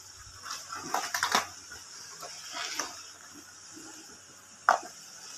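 Clear plastic takeaway food containers being handled and moved on a table. There is a cluster of clattering plastic clicks about a second in, softer rattles a little later, and one sharp click near the end.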